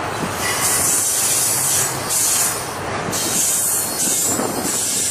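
Norfolk Southern double-stack intermodal freight train rolling slowly past, its well-car wheels rumbling on the rails. A high-pitched squeal from the wheels keeps coming and going about once a second.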